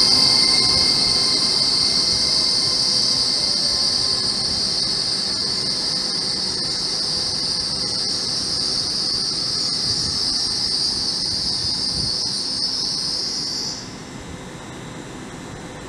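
A Hitachi Class 800-family (IET) train's wheels squealing on the rails as it moves slowly past: one steady, loud, high-pitched squeal with a fainter, higher overtone. The squeal cuts off suddenly near the end, leaving quieter steady train noise.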